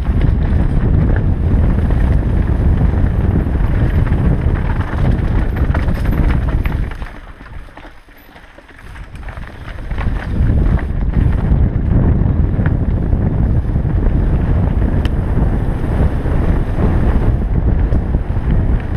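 Wind buffeting an action camera's microphone on a mountain bike descending a dirt trail at speed, with rumble and small knocks from the tyres and bike over the ground. It falls away briefly about eight seconds in, then comes back as strong as before.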